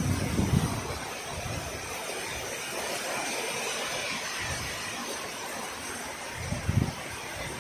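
Heavy rain pouring down in a steady hiss, with short low rumbles at the start and again about seven seconds in.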